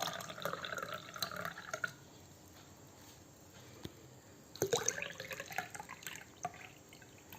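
Banana stem juice poured through a strainer into a glass, splashing and trickling in two spells of about two seconds each: one at the start and one a little past halfway.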